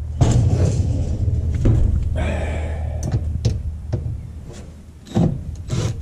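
Scraping and rattling of the sheet-metal and plastic parts of a dishwasher being pulled apart, with several sharp knocks in the second half.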